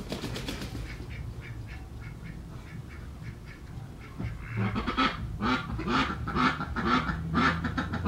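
Ducks quacking, faint at first and then in loud, rapid runs from about four and a half seconds in, over a low steady drone of distant city noise.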